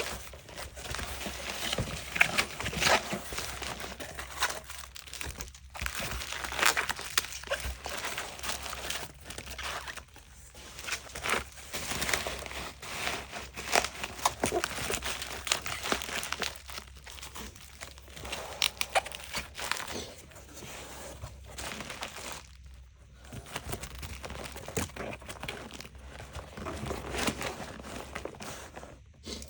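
Irregular crinkling and rustling with many small clicks, as of something crinkly being handled, pausing briefly now and then.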